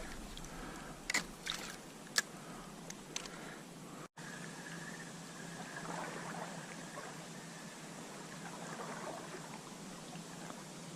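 Steady rush of a flowing trout stream, with a few sharp clicks in the first couple of seconds and a brief gap in the sound about four seconds in.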